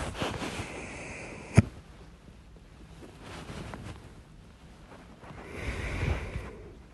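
A person hiccuping: one sharp hiccup about a second and a half in, with breathing close to the microphone around it and a swelling breath near the end.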